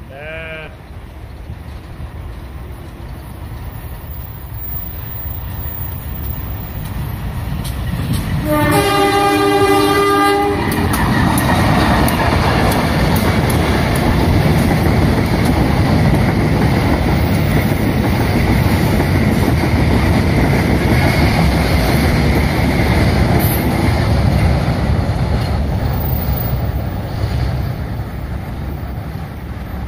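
Diesel locomotive of a passenger train approaching with a rising rumble, sounding its horn in one blast of about two seconds about nine seconds in. The train then passes close and loud, wheels clattering over the rails, and the noise eases off near the end.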